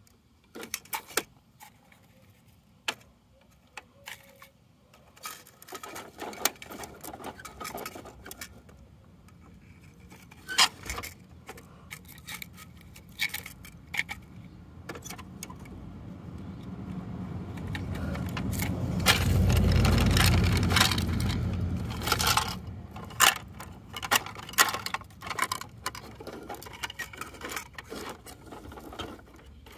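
Plastic clicking and clattering as the side-loader arm of a toy garbage truck is worked by hand, gripping and tipping small plastic toy bins. A low rumble swells through the middle, loudest about two-thirds of the way in, then fades.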